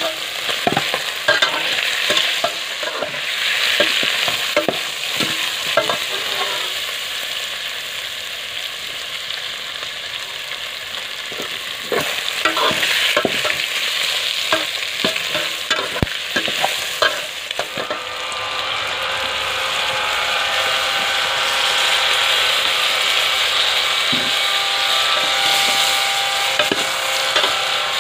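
Fish pieces and lemongrass frying and sizzling in an aluminium pot while a metal spoon stirs them, scraping and clinking against the pot. The clinks come often in the first half and thin out after about 18 seconds, while the sizzle carries on steadily.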